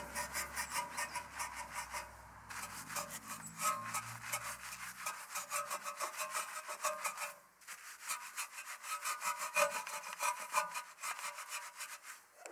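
Wheel brush scrubbing back and forth inside a wet alloy wheel's spokes and barrel: a rhythmic scratchy rubbing of about four strokes a second. It pauses briefly about two seconds in and again just past seven seconds.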